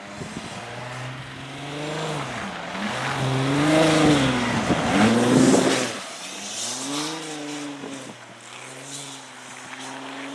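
Car engine on a race track revving up and down through gear changes. It grows loud about four to five seconds in as it passes close, then drops back and holds a steadier pitch near the end.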